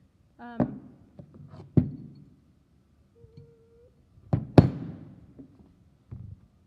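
Soft-hammer blows knocking a soldered silver ring band open against a steel ring mandrel: a few separate knocks, the loudest a quick double strike a little past the middle.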